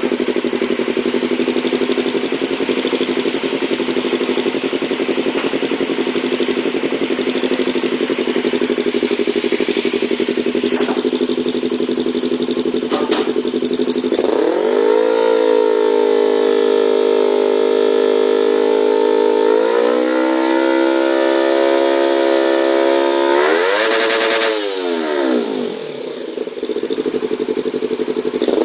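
Yamaha R25's 250 cc parallel-twin engine running through an aftermarket full-system chrome exhaust: it idles steadily for about half the time, then is revved up and held at raised revs, climbs higher, gets one quick blip and drops back to idle, and is revved again at the very end.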